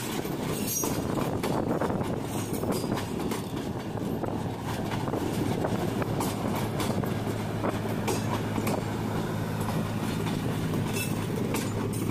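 Pakistan Railways passenger coaches passing close by, their wheels clacking over the rail joints. In the second half a steady hum joins in as the power van, which carries the train's generators, goes by.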